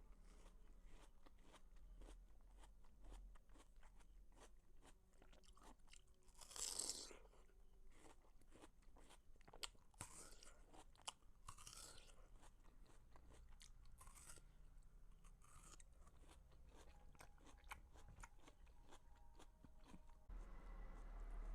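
Close-miked chewing of watermelon: steady small crunches and clicks, with a few louder crunches, the loudest about a third of the way in.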